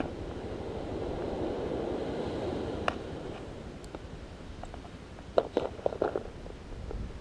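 Steady wind and surf noise, fading after a few seconds, with a couple of single clicks. About five seconds in comes a quick cluster of small clicks and taps as fishing tackle is handled with pliers.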